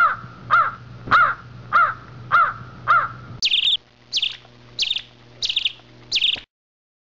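Bird calls with no music: a run of six repeated calls about 0.6 s apart, each a short note rising then falling in pitch, over a low hum. About three and a half seconds in come five higher calls, and the sound cuts off abruptly about six and a half seconds in.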